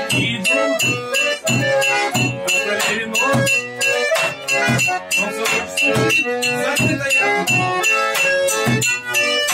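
Garmon (Russian button accordion) playing a folk tune, with a drum beat from drumsticks keeping a steady rhythm under it.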